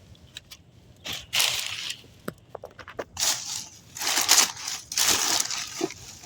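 A bag rustling and crinkling as it is rummaged through for scrap electronics, in several bursts about a second long, with small clicks and knocks of the items being handled.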